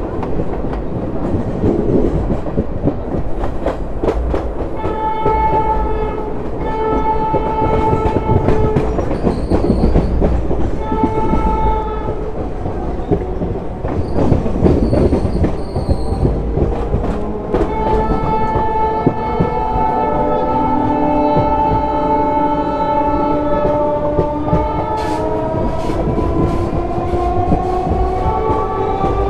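Old ICF coaches running over jointed track, with steady wheel and clickety-clack noise, while the hauling WAP7 electric locomotive's horn blows three short blasts and then, past the middle, one long blast. Two shorter, higher-pitched horn notes come in between. In the second half a whine rises steadily in pitch: the electric motors of an EMU local accelerating alongside.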